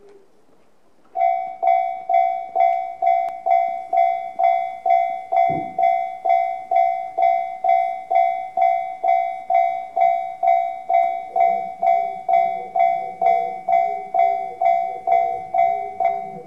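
Japanese level-crossing alarm in the JR standard tone, an electronic bell that starts about a second in and rings steadily at about two strikes a second: the crossing warning for an approaching train.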